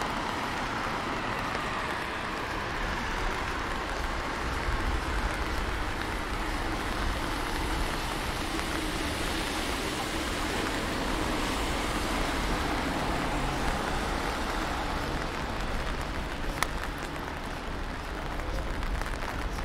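Rainy street ambience: a steady hiss of rain and car tyres on wet roads, swelling a little in the middle, with one sharp click late on.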